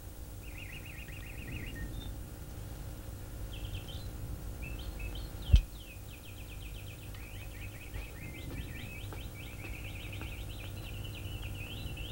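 Songbirds chirping in fast trills, a short run near the start and then almost continuously through the second half. One sharp knock comes about halfway through.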